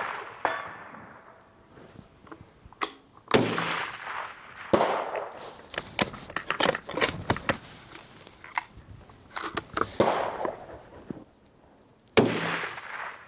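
Gunshots at a steel spinner target: a loud shot about three seconds in, another soon after and one near the end, each with an echoing tail. Between them comes a quick run of small metallic clicks and clanks.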